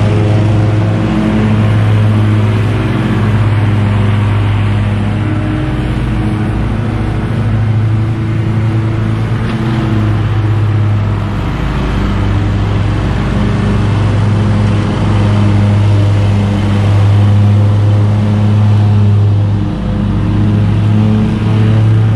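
Stand-on zero-turn mower engine running steadily under mowing load, with a constant low hum and slight rises and dips in level.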